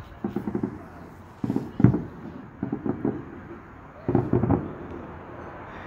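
Distant fireworks going off: four clusters of rapid bangs and pops, about a second apart.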